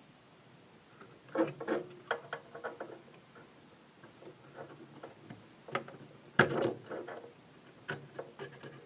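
Irregular small clicks and knocks of a circuit card being handled and worked off its pin connectors, with one louder knock about six and a half seconds in.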